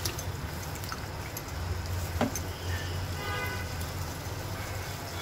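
Wet, squishy stirring of a thick chicken and mushroom curry in a pan, with a few small clicks of the spoon, over a steady low hum.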